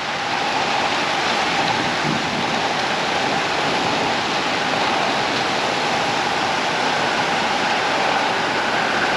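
Thunderstorm rain pouring down in a steady hiss, with a faint steady tone in the background.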